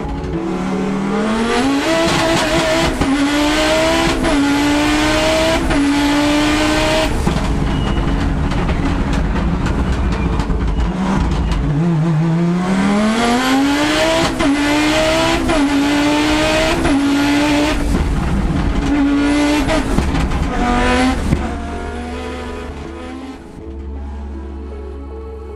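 Rally car engine accelerating hard up through the gears in two runs, each a rising pitch broken by a sharp drop at every shift, four or five shifts per run; the second run dies away a few seconds before the end.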